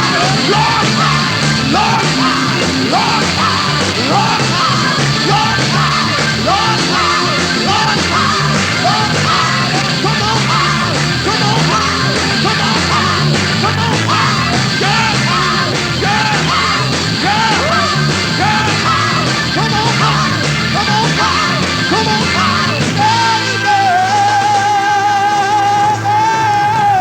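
Loud rock band music with yelled vocals over a busy band. About 23 seconds in, it gives way to a single high, wavering tone over held notes.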